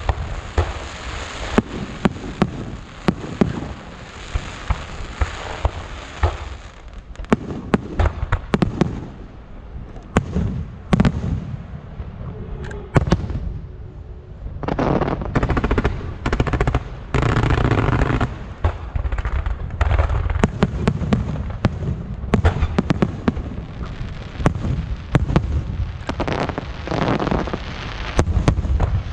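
Fireworks display: a steady run of booming shell bursts and sharp cracks, some in quick clusters, over rumbling and crackling.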